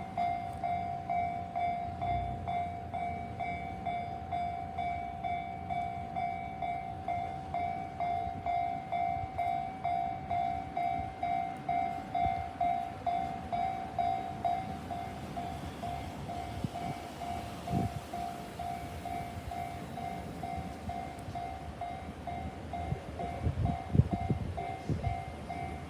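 Japanese level-crossing warning bell ringing steadily at about two strokes a second while a train rumbles across, with wheel knocks on the rails in the second half.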